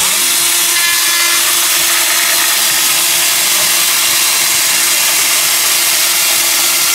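Gasoline carving chainsaw running at a steady high speed, cutting through thin wooden planks.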